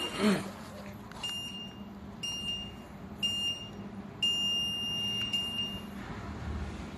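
Treadmill console beeping as it is switched on: three short high beeps about a second apart, then one long beep of almost two seconds, the start-up countdown before the belt moves. A faint steady low hum runs underneath.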